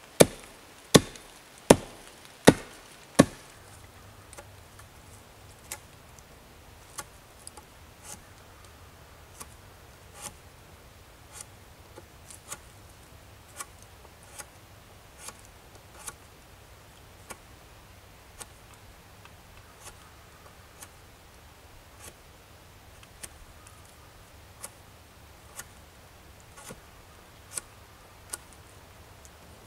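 Hatchet chopping into a log: five sharp strikes about three-quarters of a second apart in the first few seconds. Then a knife whittling the end of a wooden stick, faint clicks and scrapes about once a second.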